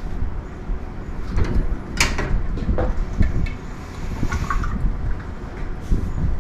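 Quart bottle of motor oil gurgling and glugging as it pours into the filler of a 1942 Ford GPW's engine, with handling clatter and a sharp click about two seconds in.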